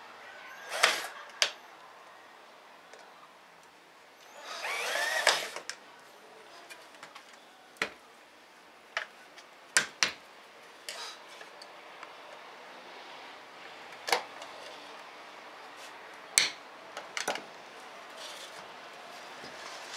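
Sharp clicks and knocks of aluminium window-frame parts and hand tools being handled and fitted on a workbench, with a short run of a hand-held electric drill about five seconds in.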